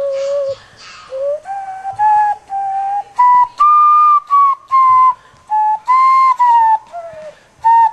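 Hand whistle blown through cupped hands, playing a tune of clear, flute-like notes. The notes come in short steps with brief gaps, climbing to the highest notes in the middle and stepping back down near the end.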